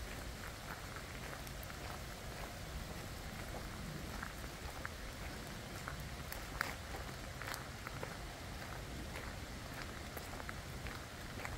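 Rain falling in a forest: a steady hiss of rain with scattered louder drips, two of them standing out a little past the middle.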